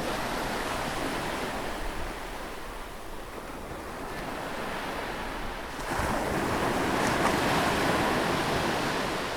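Surf-like wash of noise opening an electronic music track, fading in and swelling louder about six seconds in.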